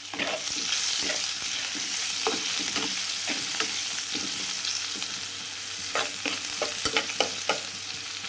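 Chopped onion and garlic with cumin seeds and dried and green chillies sizzling in hot oil in a kadai, a steady hiss. They are being stirred, with short knocks and scrapes against the pan that come more often in the second half.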